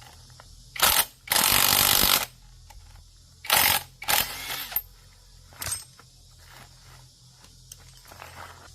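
Power tool run in five short bursts, the longest about a second, while an industrial crusher is being taken apart for repair.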